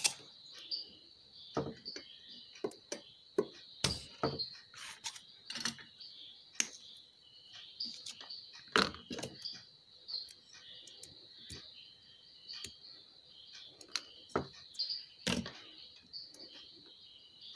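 Scattered sharp clicks and knocks of bench tools being handled, among them a spring-loaded desoldering pump being cocked and fired at a transistor's solder joints, over a steady high-pitched chirping in the background.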